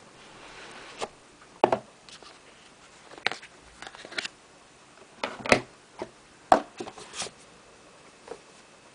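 Handling noise as a white cardboard box and a small handheld device are moved and set down on a table: a soft rustle at first, then a string of irregular sharp knocks and clicks.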